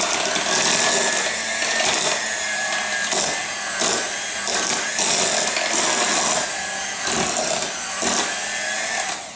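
Electric hand mixer running, its beaters whipping potatoes into mashed potatoes in a glass bowl: a steady motor whine with surges of churning noise about once a second as the beaters move through the mash. The motor cuts off just before the end.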